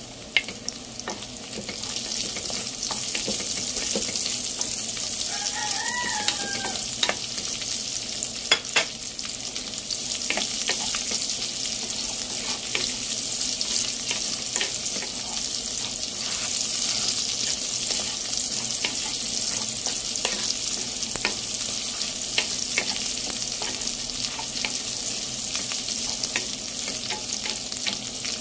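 Garlic, onion and meat pieces sizzling in hot oil in a frying pan while a wooden spatula stirs them, with scattered scrapes and taps of the spatula on the pan. The sizzle swells over the first couple of seconds as the onion goes into the oil, then holds steady.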